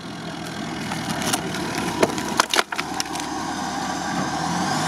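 UAZ off-roader's engine running while dry branches crack and snap under its tyres a few times, the loudest pair of snaps about halfway through. The engine note climbs near the end.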